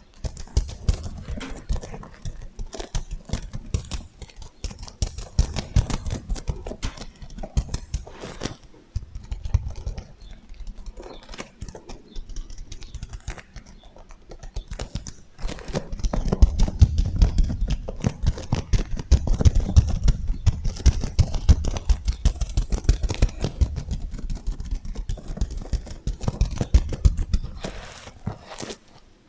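Fingers scratching and brushing over the sequins of a sequin heart pillow close to the microphone, a dense run of quick clicks and rustles with a thudding low rumble, under an echo effect. It grows louder about halfway through.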